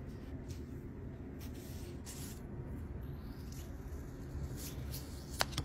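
Soft swishes and rustles of a cleaning cloth wiped over a phone's glass screen and a plastic camera-lens protector being handled on its backing, with one sharp click near the end, over a steady low background hum.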